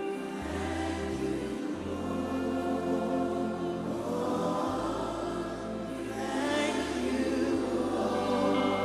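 Gospel worship music: a choir singing sustained notes over held bass notes from a keyboard or band.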